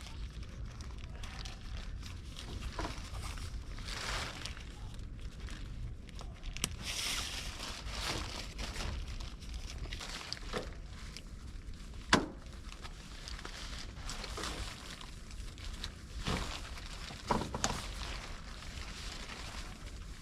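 Rustling and crinkling handling noises, scattered through, with one sharp click about twelve seconds in.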